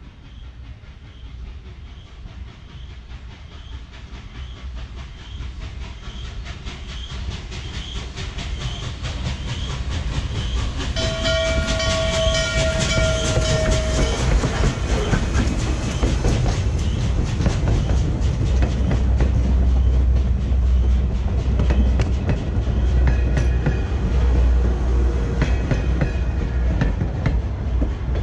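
Norfolk & Western 611 steam locomotive approaching and passing, growing steadily louder. Its whistle sounds a steady chord for about three seconds, a little after ten seconds in. Then the passenger cars roll by with rapid wheel clicks over the rail joints and a heavy low rumble.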